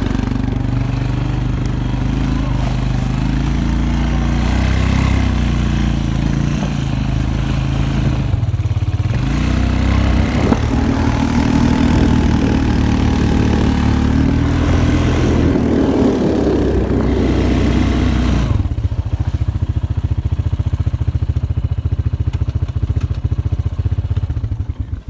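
Snowmobile engine running under way across snow, its revs rising and falling, then settling into a slower, even throb about three-quarters of the way through before cutting off at the end.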